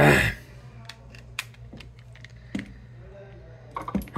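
Light scattered clicks and taps of the phone and small tools being handled on a silicone repair mat, after a short loud rustle at the very start.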